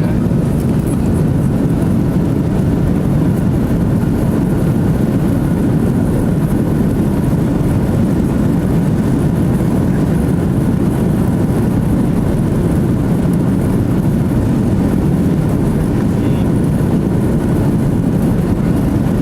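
Steady cabin drone of an Airbus A330-300 in flight, heard from a passenger seat: engine and airflow noise, even and unchanging, deepest and strongest in the low range.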